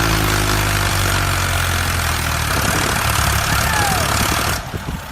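An engine running steadily at an even speed, with a loud hum and a thick layer of noise over it. It falls away about four and a half seconds in.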